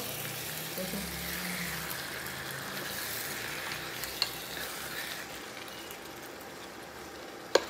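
Goat trotters in spice masala sizzling in a pot on full heat while being stirred with a spatula, with a steady frying hiss. There is a single click about four seconds in, and the sizzle grows softer near the end.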